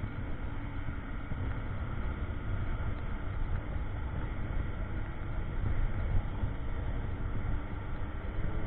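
Steady wind buffeting and road noise from a moving motorcycle, with its engine's hum running underneath.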